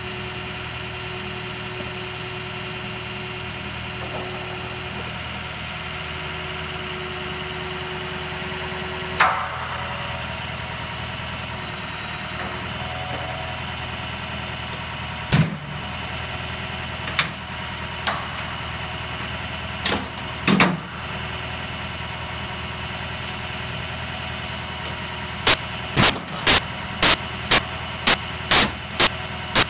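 Truck engine idling steadily, with a few sharp knocks in the middle and a run of regular sharp clicks, two or three a second, near the end.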